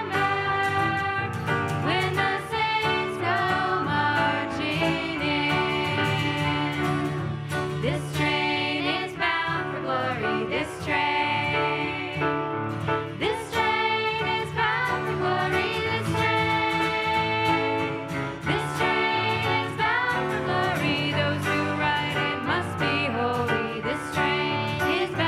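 Music: a song sung by voices over instrumental accompaniment.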